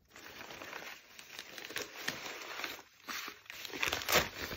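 Crumpled brown kraft packing paper rustling and crinkling as hands pull it out of a box, in an irregular run of crackles with a louder rustle about four seconds in.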